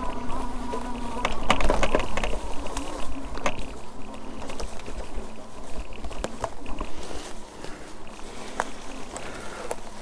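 Yadea Trooper 01 fat-tire electric bike ridden off-road. A steady motor whine stops about a second in, then a burst of crackling and scattered clicks as the tires run over leaves and twigs.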